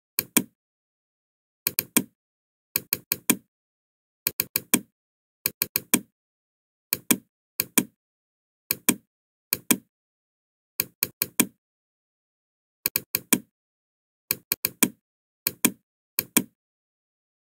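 Computer mouse clicking in quick groups of two to four clicks, about one group a second, with dead silence between.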